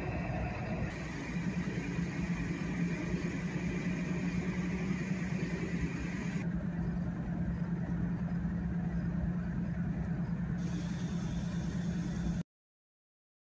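Freight train cars rolling past on the track: a steady rumble with a low steady hum, which cuts off to silence about a second before the end.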